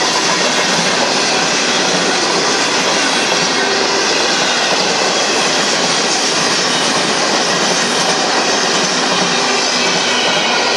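Empty intermodal flatcars of a Union Pacific freight train rolling past: loud, steady, unbroken wheel-on-rail noise.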